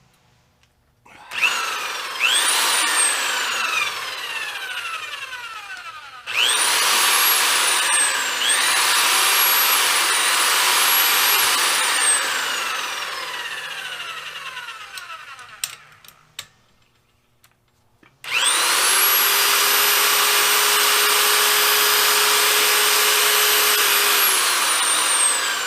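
Electric pipe threader's motor driving a tubing roller that is bending flat stock, switched on and off with a foot pedal three times. Each run starts with a rising whine and holds a high pitch, then winds down with a falling pitch as the motor coasts. In the second run the pitch dips twice and recovers.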